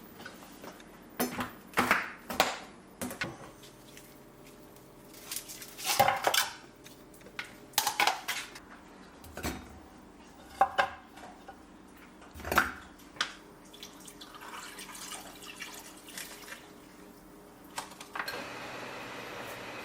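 Pots, dishes and utensils clinking and knocking in irregular single strikes, some ringing briefly. Near the end a steady rushing noise starts.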